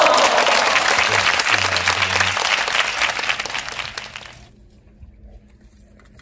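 Crowd applause and cheering, dense and loud, fading away and stopping about four seconds in.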